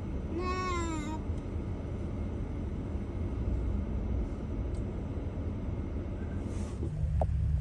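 A Jeep driving on an off-road trail: a steady low rumble that gets louder about seven seconds in. A brief high, wavering tone comes about half a second in.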